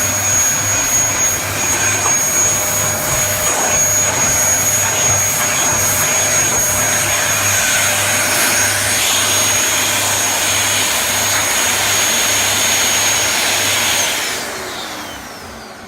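Dyson upright vacuum cleaner running steadily with a high motor whine, then switched off near the end, its motor whine falling in pitch as it winds down.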